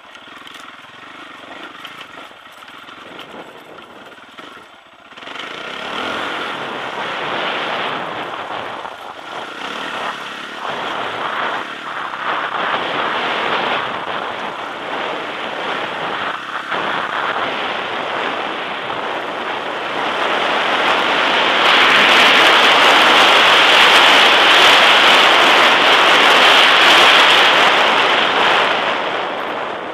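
Sherco enduro motorcycle engine running under load while the bike is ridden over rough dirt and gravel. It is quieter for the first five seconds, then louder, and loudest from about twenty seconds in until just before the end.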